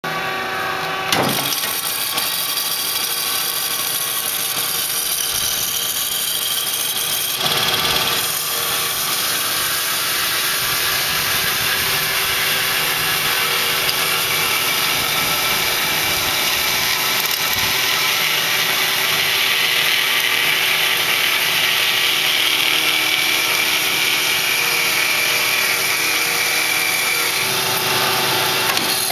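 Marvel-Spartan PA10 automatic horizontal bandsaw running, its blade cutting through metal stock with a steady hiss over a constant hum. A short knock about a second in.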